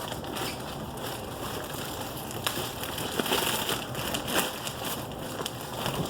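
Tough parcel packaging being torn and pulled at by hand: continuous crinkling and crackling with scattered sharp snaps.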